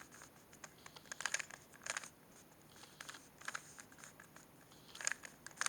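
Plastic Rubik's cube layers being twisted by hand: short runs of quick clicking and clacking, several times.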